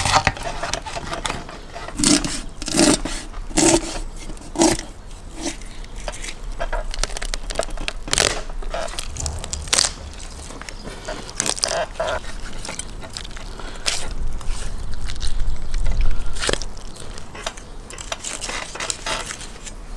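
Knife cutting into a raw whole lamb carcass while hands pull and press the meat and ribs: irregular scrapes, crackles and crunches, with a few duller knocks about two to five seconds in and a low rumble at times.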